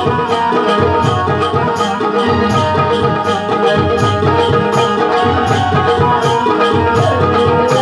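Live Shakti-Tura folk music: hand drums of the dholki type beating a fast, steady rhythm under sustained held melodic tones, with a gliding melodic line entering late on.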